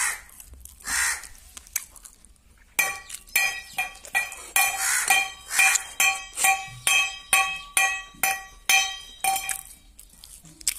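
A small stainless steel plate being struck over and over, starting about three seconds in: about two sharp metallic clinks a second, each ringing briefly with the same bright tones, stopping a second or so before the end.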